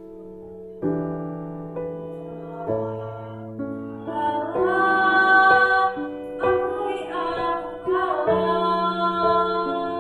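Slow piano accompaniment with notes struck about once a second. A young female solo voice comes in about four seconds in, singing long held notes.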